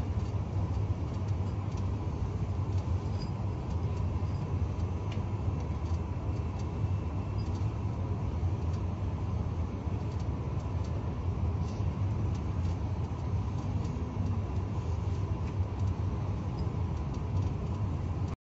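Airliner cabin noise heard at a window seat during final approach and landing: a steady low rumble of engines and airflow, with a faint steady whine above it.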